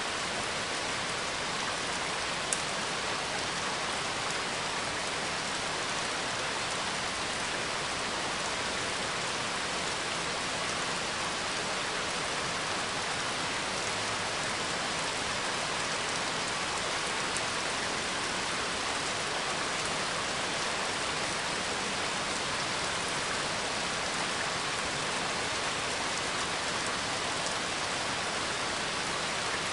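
Steady rain falling, a recorded rain ambience heard as an even, unbroken hiss, with one short sharp tick about two and a half seconds in.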